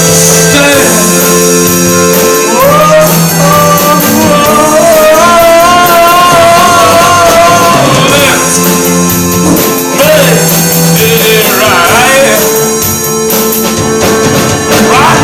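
Loud rock music played by a full band: a sung word about a second in, then an instrumental stretch with a held, wavering lead melody line over steady bass notes.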